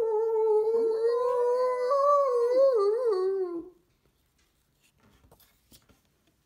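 A long, loud howl, held on one pitch for about three seconds, then wavering up and down and falling before it stops.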